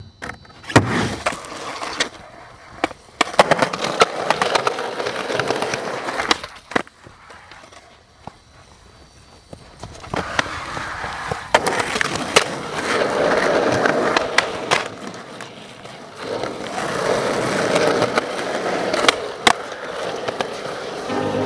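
Skateboard rolling, its wheels rumbling over the ground, broken by many sharp clacks of the board popping and landing. There is a quieter stretch about a third of the way through.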